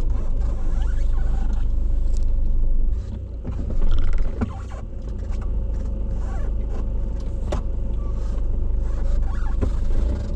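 A Maruti Suzuki Baleno being driven, heard from inside the cabin: a steady low rumble of engine and tyre noise, with a few short clicks along the way.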